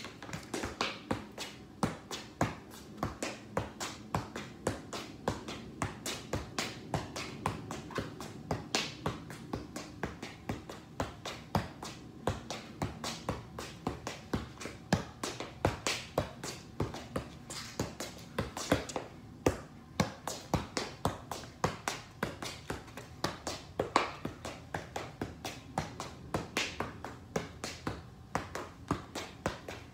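Soccer ball being juggled on the feet: a steady run of sharp touches, about two to three a second, in a small garage.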